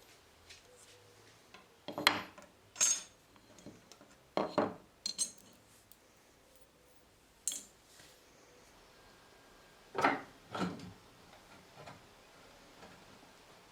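Small metal parts clinking and clattering as they are handled and set down on a bench. There are a few separate sharp knocks with pauses between them; the loudest come about two seconds in and again about ten seconds in.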